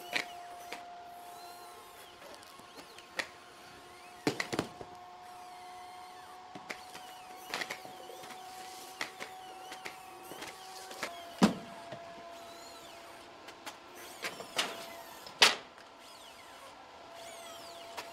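Boston Dynamics Atlas humanoid robot's hydraulics running as a steady whine, with sharp knocks and thumps from its feet on the concrete floor and from cardboard boxes being struck and handled, the loudest thump late on.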